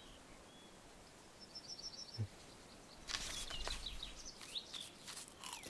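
Faint outdoor ambience with birds chirping. About three seconds in, a newspaper paper cone crinkles and rustles as hands dig into it.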